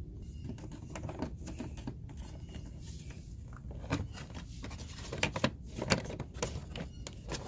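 Small clicks and scrapes of a plastic car door handle part being handled and fitted, with a few sharper clicks in the second half.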